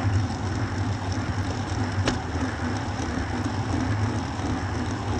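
Wind rushing over a bike-mounted action camera's microphone, mixed with road-bike tyre and road noise, while riding in a group at about 24 km/h. There is a single sharp click about two seconds in.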